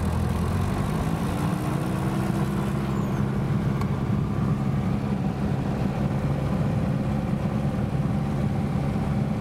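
Piper Cherokee's piston engine held steady at about 2000 rpm for the pre-takeoff run-up, before the magneto check.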